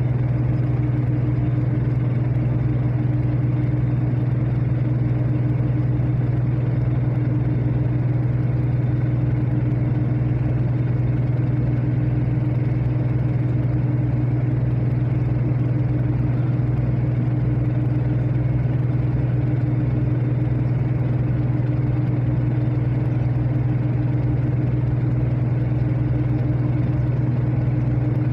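A ferry's engine running steadily, heard aboard as a constant low drone with an unchanging deep hum.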